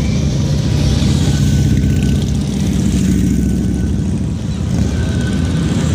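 Motorcycle engines running as touring motorcycles and a trike ride slowly past in a parade, a loud, steady low rumble.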